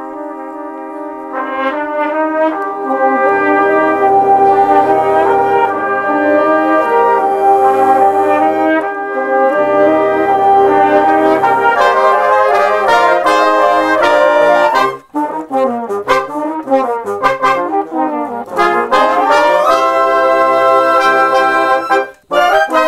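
Concert band music, multi-tracked by one player on woodwinds, brass and mallets, with trombones and trumpets to the fore. Held chords give way, after a brief dip about fifteen seconds in, to quick running figures. A short break comes near the end, then a loud closing chord.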